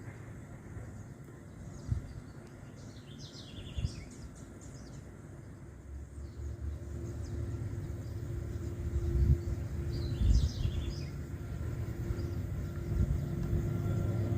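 Diesel freight locomotives working hard up a grade and approaching, their low engine rumble growing steadily louder, with a steady hum joining about halfway. Birds chirp briefly twice, about four and ten seconds in.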